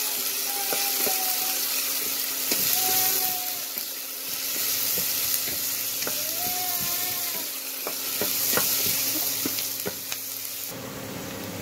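Chopped onion, carrot, green chilli and ginger sizzling in hot oil in a stainless steel pot as they are sautéed, stirred with a wooden slotted spatula that knocks and scrapes against the pot in frequent short clacks. The sizzle goes quieter near the end.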